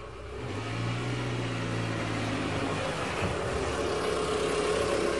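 Road traffic: cars running past as a steady wash of engine and tyre noise, with a low engine hum through the first few seconds.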